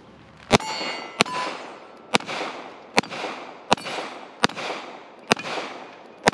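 Springfield Prodigy DS 9mm 2011 pistol fired in a steady string of eight shots, a little faster than one a second, each shot trailed by a short echo.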